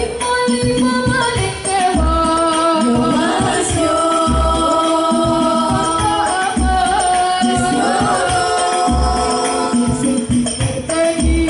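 An Al Banjari hadroh group performing: girls' voices singing a sholawat melody together in long held, gliding notes over hand-played frame drums (rebana), with a deep bass drum stroke about every two seconds.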